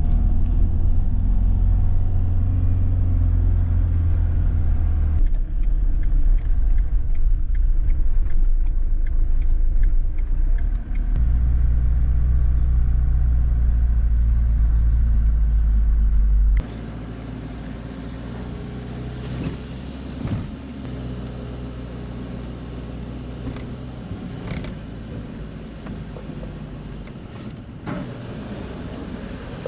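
Steady low engine rumble, loud for the first half and changing abruptly twice, then dropping suddenly to a quieter hum with a few short knocks.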